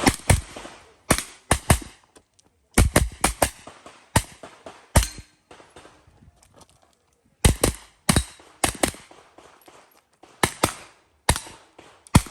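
Gunshots in a practical-shooting course of fire: about twenty sharp shots, many fired as quick pairs, in short strings separated by brief pauses while the shooter moves between positions.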